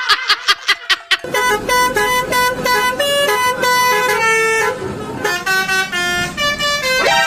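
Multi-tone 'telolet' bus horn playing a tune: a rapid stutter of short toots for about a second, then held notes stepping up and down in pitch.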